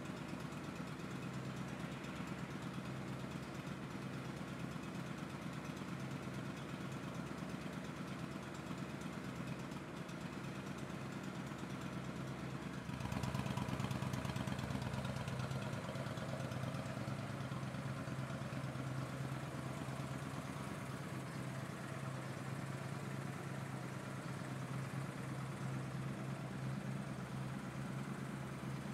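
Honda Shadow Aero VT750's V-twin idling steadily through its stock exhaust, the baffles drilled with holes. The sound steps up in loudness about halfway through and stays there.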